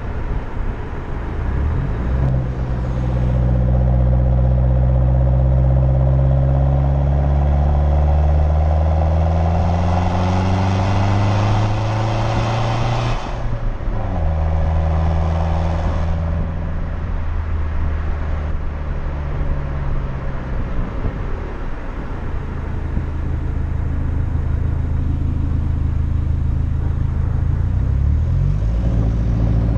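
Ford Focus Mk2's custom straight-piped duplex exhaust, catalytic converter still fitted, on the move. The engine note climbs steadily under acceleration for about ten seconds, then drops sharply at an upshift. It climbs again briefly and settles to a steady cruise, with another quick change in engine pitch near the end.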